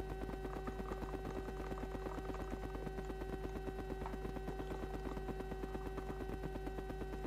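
Background music: steady held tones over a fast, even beat.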